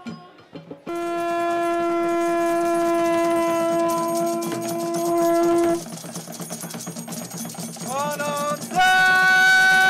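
A horn blown in long, steady held notes: one note for about five seconds, then, after a pause, a short blast rising in pitch and a second held note a little higher.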